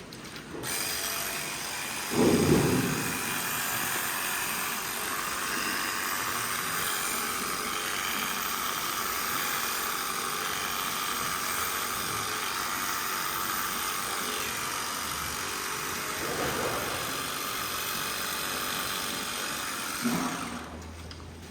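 A motor-driven machine running steadily for about twenty seconds. It starts with a brief louder surge and cuts off shortly before the end.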